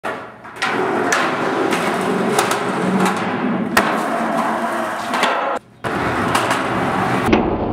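Skateboard wheels rolling on concrete, broken by sharp clacks of the board hitting the ground every second or so. The sound cuts out for a moment about three quarters of the way in.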